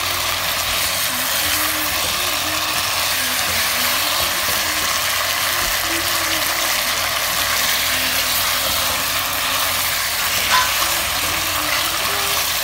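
Chicken leg pieces sizzling steadily as they fry in oil and masala in a pot, stirred and scraped with a wooden spatula, with one sharp click about ten and a half seconds in. This is the dry-frying stage: the chicken's water is cooking off so the masala sticks to the meat.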